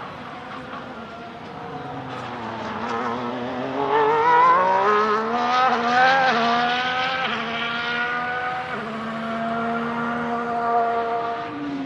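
Ferrari SF-23 Formula 1 car's turbocharged V6 hybrid engine accelerating hard, its note rising and then stepping down at several quick upshifts. It is loudest about four to six seconds in, holds a steady pitch, then falls near the end.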